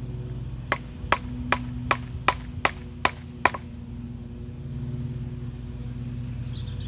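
Eight sharp knocks in quick succession, about two and a half a second, like wood being struck hard, then a pause; a steady low hum runs underneath.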